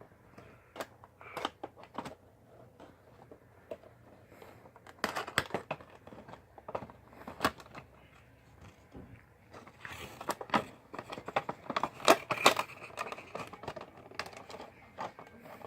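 Cardboard box and plastic packaging of a Funko Pop figure being opened and handled: irregular crinkles, rustles and clicks, busiest about five seconds in and again from about ten to thirteen seconds.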